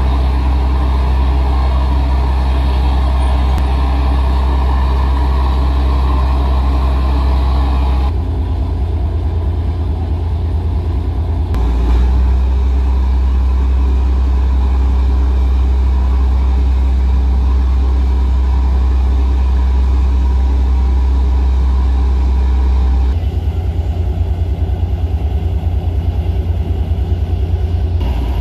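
Deep, steady drone of ship diesel engines running. The note shifts to a rougher, pulsing rumble about eight seconds in, smooths out again near twelve seconds, and turns pulsing again from about twenty-three seconds.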